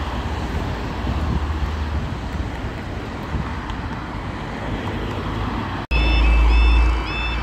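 Cars passing over the level crossing for about six seconds. After an abrupt cut, the crossing's audible warning alarm sounds: a high stepped tone repeating about twice a second, over a low rumble.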